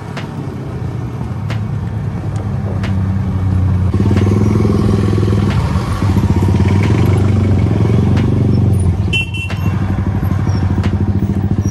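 Motorcycle engine running at low road speed, its steady note growing louder over the first few seconds and then holding, with a brief dip about nine seconds in.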